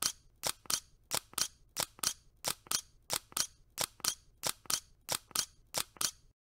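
Camera shutter clicks: a crisp double click, the two halves about a quarter-second apart, repeating steadily about every two-thirds of a second, ten times over, then stopping shortly before the end.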